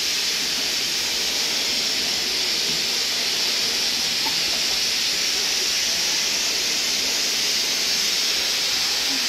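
A steady, even hiss that holds unchanged throughout, with most of its energy high up.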